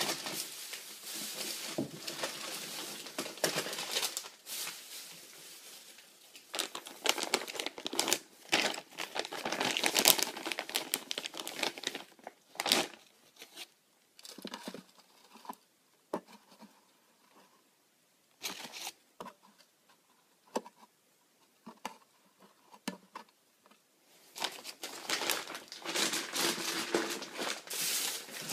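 Tarantula shipping packaging being unwrapped by hand: crinkling and tearing in bursts, with a quieter stretch of scattered clicks and taps in the middle.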